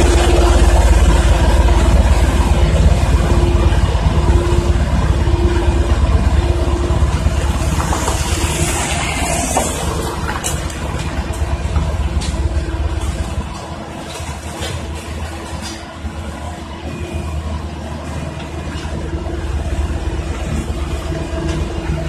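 Diesel engine of a single-drum road roller running with a steady hum and deep rumble as it rolls close by on a gravel road, then fading as it drives away in the second half.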